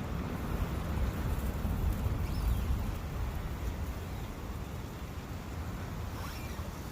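Forest ambience: wind blowing with a low rumble, a little stronger in the first few seconds, over the steady rush of a brook.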